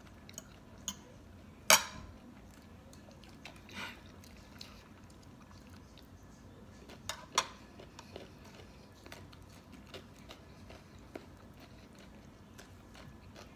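Eating at a table: a fork clinking and scraping on a plate of Thai spicy salad, with chewing and small clicks of handling a king crab leg. There are scattered sharp clicks; the loudest comes about two seconds in and another strong one about seven seconds in.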